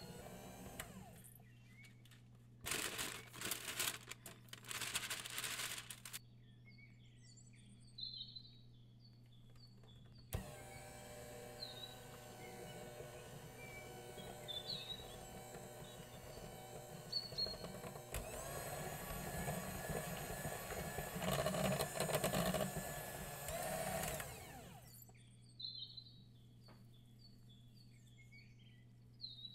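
Electric hand mixer running, its beaters whirring through cake batter in two stretches: a short burst a few seconds in and a long steady run of about fifteen seconds from about a third of the way in. In the quiet gaps between and after, recorded birdsong chirps in the background.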